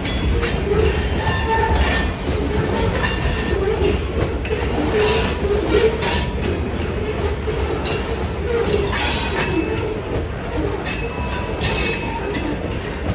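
Freight train's covered hopper cars rolling past close by: a steady rumble of steel wheels on the rails, with a wavering squeal from the wheels and scattered clanks and knocks from the cars.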